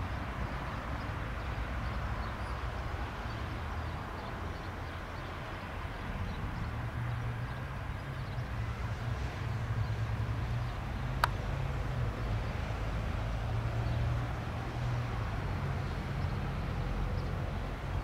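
Beechcraft King Air C90A's twin PT6A turboprop engines running at taxi power at a distance, a steady low drone with a single sharp click about eleven seconds in.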